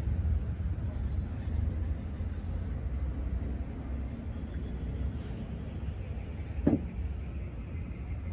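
Steady low background rumble, with one short knock near the end.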